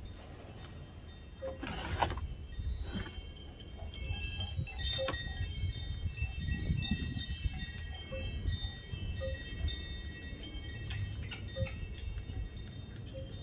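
Chimes ringing in several overlapping, lingering tones from about four seconds in. Before that come a few short scraping clicks of a small knife trimming the husk of a sprouting coconut.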